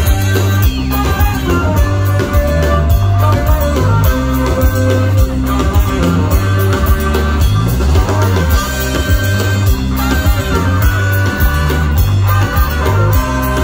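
Live band playing loud rock-funk music: a bass line stepping between notes, a steady drum beat and electric guitar.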